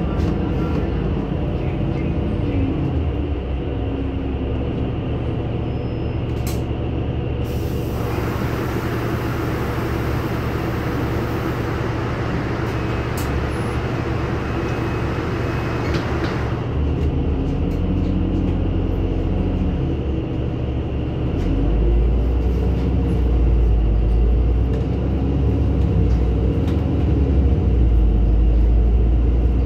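NefAZ-5299 city bus heard from inside while it runs, its engine drone steady. A broad hiss sets in suddenly about a quarter of the way through and stops just as suddenly some eight seconds later. From about two-thirds through, the engine's low rumble grows louder as it works harder.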